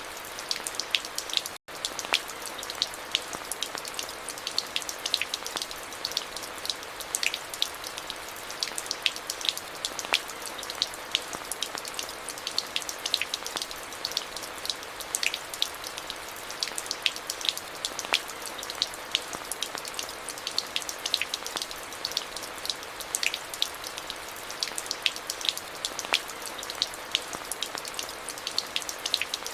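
Steady rain, an even hiss with many sharp, distinct drops hitting close by. The sound cuts out for an instant about a second and a half in.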